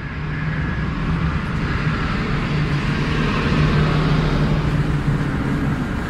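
Car driving along, a steady engine hum with road and tyre noise heard from inside the cabin.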